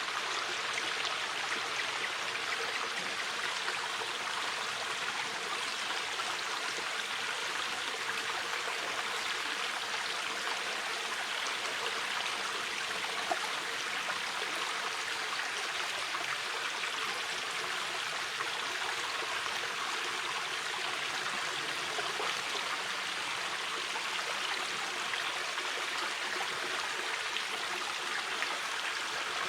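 A shallow river flowing steadily, a continuous rushing and burbling of water over stones.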